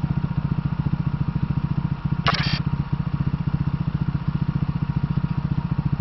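KTM Duke 390's single-cylinder four-stroke engine running steadily at low revs with an even throb, as at idle. A brief hiss is heard about two seconds in.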